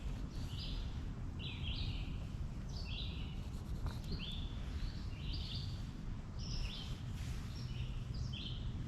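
A bird calling over and over, short high chirps about one or two a second, over a steady low rumble.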